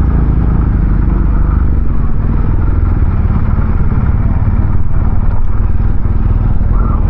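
BMW R 1250 GS motorcycle's boxer-twin engine running steadily, heard from on the bike.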